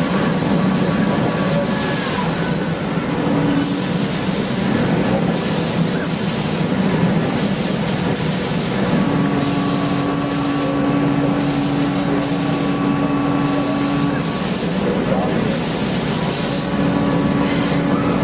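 Factory machinery running steadily, with a constant hum and a short high chirp repeating about every second and a half.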